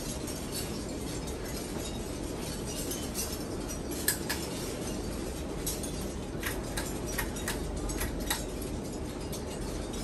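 Hunter Westminster ceiling fan running with a steady low whoosh, and a run of sharp clicks and clinks, one loud click about four seconds in and about eight lighter ones between about six and eight seconds in, as its pull chain is pulled and the chain and switch click.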